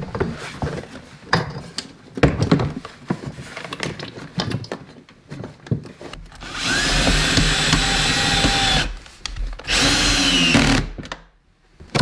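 Hard clunks and knocks as the diesel heater unit is handled and set down into a plastic case, followed by a cordless drill running in two bursts: a longer one of about two and a half seconds, then a second of about a second.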